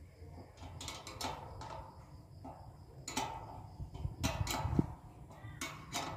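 Scattered light clicks and rattles of hands adjusting a satellite dish and its LNB arm, with a few duller knocks about four to five seconds in.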